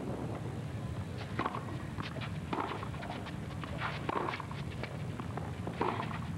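Tennis rally on a Har-Tru green clay court: a racquet strikes the ball several times, starting about a second in, with ball bounces between, over a steady low background.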